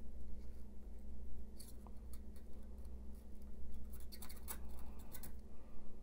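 Soldering iron tip pressing copper desoldering braid over the solder pads of a circuit board, giving faint scratching and rubbing strokes as the braid wicks up old solder, over a steady low hum.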